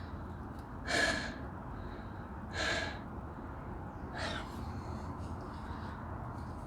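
A person breathing out heavily three times, about a second and a half apart, over a low steady hum.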